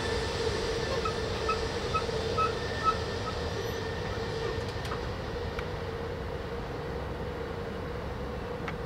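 Amtrak passenger train rolling away around a curve: a steady rumble of wheels on rail that slowly fades, with a steady tone running under it. A short run of faint high chirps, about two a second, sounds in the first few seconds.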